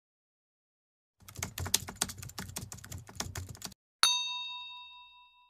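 Keyboard-typing sound effect, a quick run of key clicks for about two and a half seconds, followed by a single bell ding that rings on and fades away.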